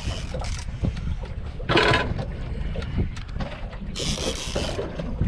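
Wind buffeting the microphone on a small boat at sea, a steady low rumble with two brief rushes of hiss, about two seconds in and about four seconds in.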